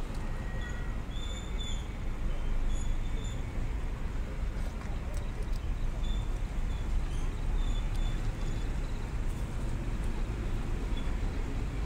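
Steady low rumble of a car driving along a road, with the even noise of tyres and engine. A few short, faint high chirps break through, mostly in the first few seconds and again about halfway through.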